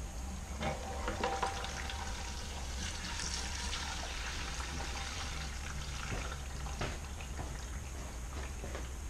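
Water running through a homemade transmission-cooler mock-up of clear plastic tubing and PVC pipe, filling it from the bottom up while the air escapes out the outlet at the top. Steady running water with scattered small clicks.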